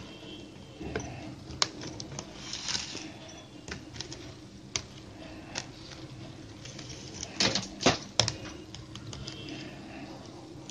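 Plastic basket-weaving wire being pulled through and wrapped around a woven basket's rim by hand: scattered clicks and crinkly rustles of plastic, with a quick cluster of sharp clicks about three-quarters of the way through.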